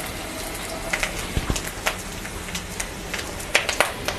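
Ginger paste frying in hot oil in a kadai over a low flame: a steady sizzle with scattered sharp pops and crackles.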